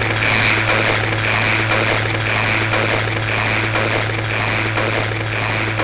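Homemade spring-and-oscillator noise synthesizer putting out a steady droning noise, with a low hum under a hissy upper band and a few clicks in the first half-second.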